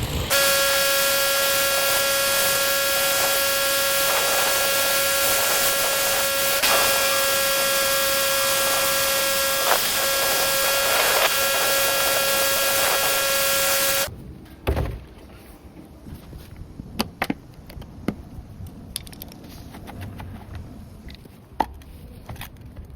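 Pressure washer spraying: a loud steady hiss of the water jet with a constant whine, which cuts off suddenly about fourteen seconds in. Scattered clicks and knocks follow.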